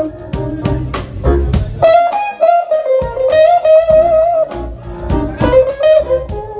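Live band playing an instrumental jam: electric guitar carrying a lead melody with a long held, wavering note in the middle, over drums and bass.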